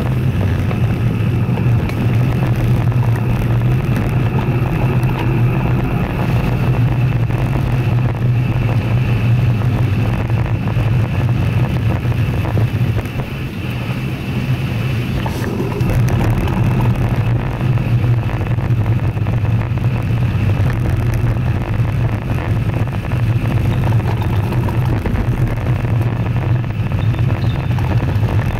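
Steady low wind rumble and road noise on a Sony FDR-X1000V action camera carried on a moving road bicycle, dipping briefly about halfway through.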